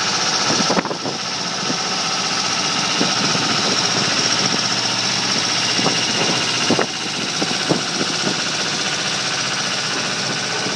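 Engine of a heavy-haul modular transporter running steadily as it moves, with a couple of sharp knocks.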